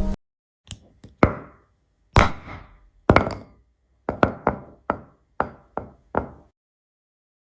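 About a dozen sharp knocks or taps on a hard object, unevenly spaced, each dying away quickly, stopping about six seconds in.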